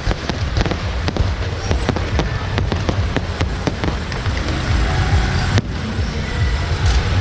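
Fireworks going off in quick, irregular bangs, several a second, over a low rumble; the bangs thin out after about five seconds.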